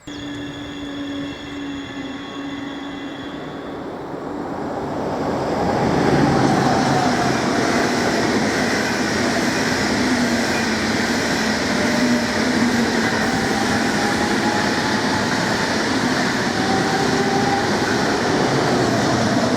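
A DB Class 424 S-Bahn electric multiple unit running on the rails, the train nicknamed "Quietschie" for its squealing. Steady tones are heard at first; about five seconds in it grows louder into a rail rumble with a whine that drifts in pitch.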